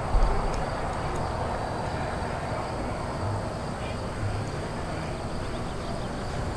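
Steady outdoor background noise, with a brief low thump about a quarter of a second in.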